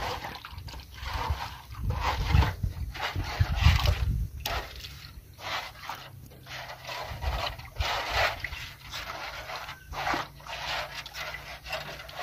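Muddy water sloshing and splashing in a metal basin as hands work through it, with wet mud squelching, in irregular bursts.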